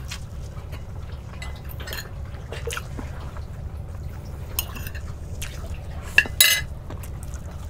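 A person eating kimchi by hand: wet chewing and mouth sounds with a few short clicks from the plate, over a steady low rumble. The loudest is a pair of short sharp sounds a little past six seconds in.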